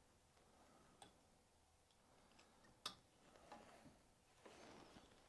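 Near silence with faint whittling: a carving knife making small cuts in a willow stick, with two light ticks, about a second in and near the three-second mark, and a brief soft scraping later on.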